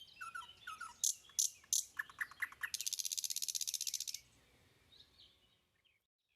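Small birds chirping: a string of short sharp chirps, then a rapid, evenly pulsed high trill lasting about a second and a half that stops about four seconds in, followed by a few faint calls.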